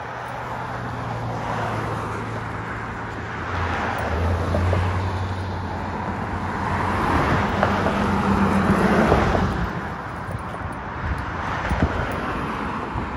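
Road traffic on the road alongside: vehicles passing, the sound swelling about four seconds in and again, louder, around eight to nine seconds before easing off.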